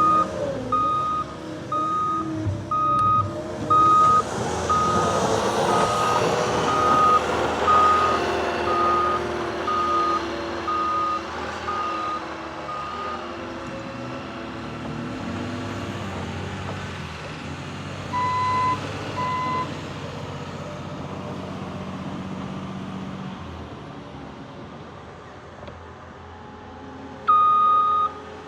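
Heavy snow-plowing machine's diesel engine working under load while its backup alarm beeps about once a second; the beeping stops about halfway through, two lower beeps sound briefly later, and the alarm starts again near the end.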